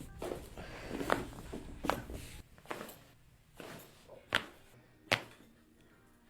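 Sharp cracks and pops of the neck's joints during a chiropractic adjustment. They come in a scattered run, and the two loudest fall about four and five seconds in; they are big ones.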